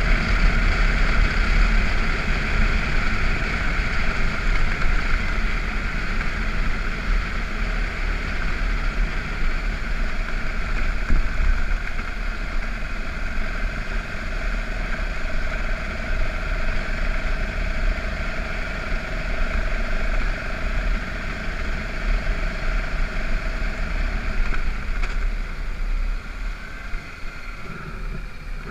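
BMW F650GS motorcycle running steadily under way on a gravel road, with wind rumbling on the microphone. The sound drops a little near the end as the bike slows.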